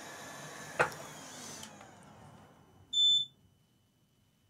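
A single short, high electronic beep from a multimeter's continuity test, about three seconds in, as the probes make contact across a freshly resoldered inductor on the graphics card: it signals that the coil's connection is now closed. A light click comes about a second in.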